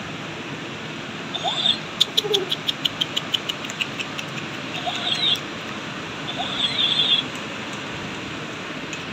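A few short, high-pitched animal squeaks and a quick run of evenly spaced chirps, about six a second, over a steady hiss.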